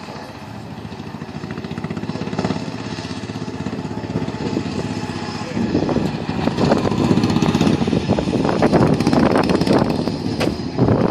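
Briggs & Stratton 12.5 hp riding lawn mower engines running, the sound building steadily and then becoming much louder and rougher about halfway through as the mowers race.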